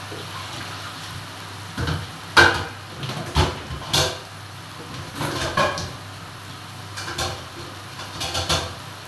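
Electric pot heaped with raw kangkong (water spinach), sizzling steadily underneath, with several sharp clicks and knocks scattered through; the loudest comes about two and a half seconds in.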